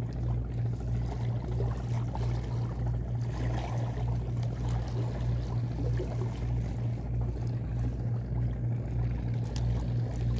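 A low engine throb that pulses evenly about three times a second, with water lapping and splashing against the breakwater rocks.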